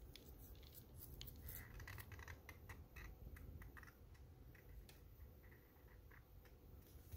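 Faint scratching and quick ticking of a felt-tip marker on paper as a child writes letters, busiest in the first few seconds and then quieter.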